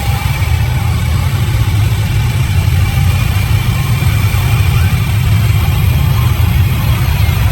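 Sawmill machinery running steadily, a deep, even engine drone with a faint high whine above it.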